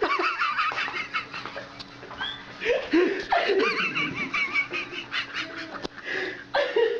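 A person laughing in several bursts of high, quickly wavering giggles, with pauses between them.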